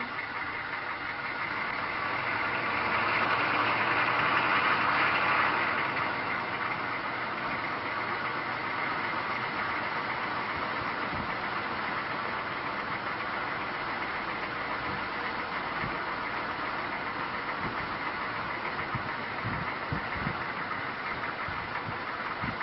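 An engine running steadily, growing louder for a few seconds about three seconds in, then settling back.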